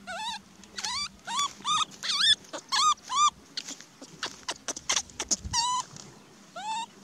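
Baby macaque whimpering: a rapid run of short, high-pitched cries that rise and fall, then a pause filled with sharp crackling clicks, then two more cries near the end. These are an infant monkey's distress calls while it searches for its father.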